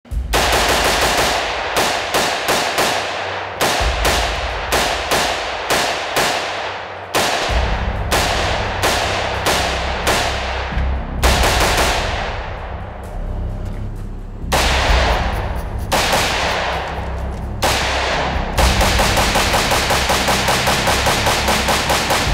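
Short-barrelled 300 Blackout AR pistol with an 8-inch barrel and R2 muzzle device, fired unsuppressed in quick strings of about three to four shots a second, each shot ringing off after it. The strings stop and restart several times.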